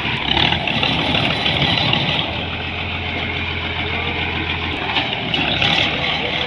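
Road roller's diesel engine running steadily, with a low steady drone that comes in for a couple of seconds midway.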